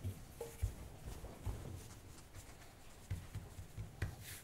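Faint, soft, irregular thuds of hands patting and pressing the edges of a sheet of puff pastry dough on a floured worktop, squaring it off.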